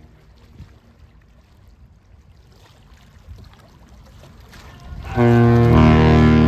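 Great Lakes freighter's horn sounding a salute: after a few seconds of faint background noise, a loud, deep horn blast starts suddenly about five seconds in and holds to the end.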